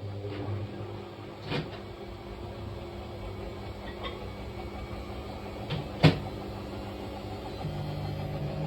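Washing machine running with an unbalanced load: a steady low hum with a few sharp knocks as the off-balance drum strikes the cabinet, the loudest about six seconds in. The hum grows louder near the end.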